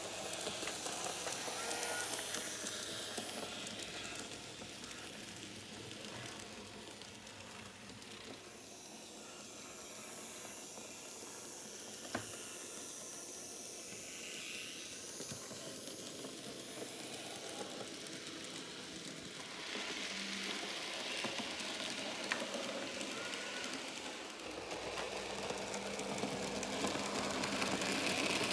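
Märklin miniclub Z-scale model trains running on the layout: a steady, hiss-like running noise from the tiny motors and wheels on the rails. It grows louder twice in the second half as a train passes close by. There is a single sharp click about twelve seconds in.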